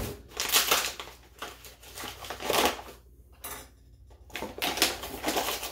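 Paper bag of granulated sugar crinkling and rustling in several short bursts as it is opened and handled, with a plastic measuring cup dipped in to scoop the sugar.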